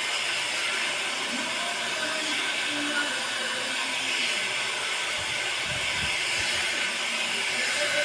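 Handheld hair dryer blowing steadily on hair, a constant airy hiss, with a few brief low rumbles of air about two-thirds of the way through.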